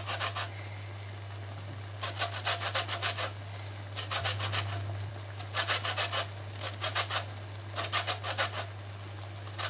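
Orange rind being grated on a flat metal hand grater: quick rasping strokes, several to a burst, in short bursts with brief pauses between them.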